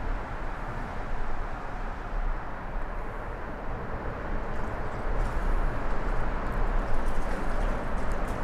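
Steady rumbling, rushing background noise, with a few faint ticks in the second half.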